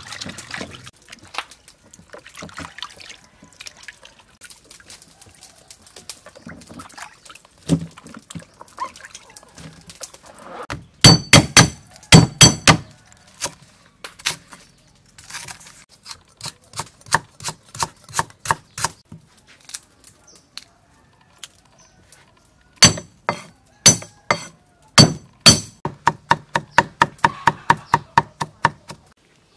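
Kitchen cleaver chopping lemongrass and ginger on a wooden chopping block: sharp knocks in bursts, ending in a quick run of about four or five chops a second.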